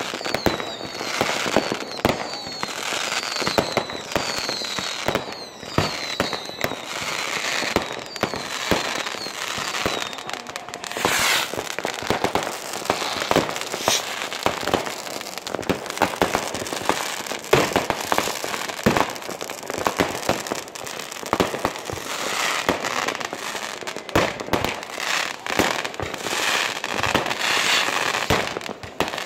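Many New Year's fireworks going off at once: rockets, bursts and firecrackers in constant bangs and crackling, with a run of short falling whistles over the first ten seconds.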